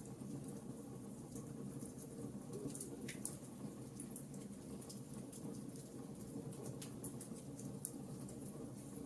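Campfire crackling: irregular sharp pops and snaps, a sharper one about three seconds in, over a steady low background of the burning fire.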